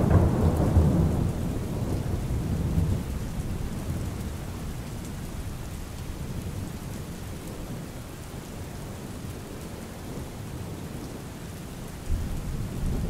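Steady rain with thunder: a loud low rumble at the start that fades away over the first few seconds, leaving the rain, then another roll of thunder setting in suddenly near the end.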